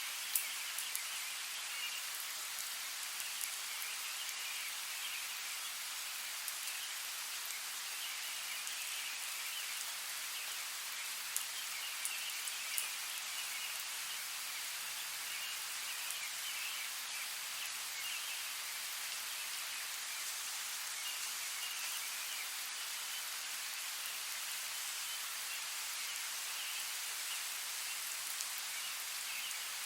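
Steady rainfall in a forest, an even hiss with a few louder single drops ticking close by, several of them around twelve seconds in.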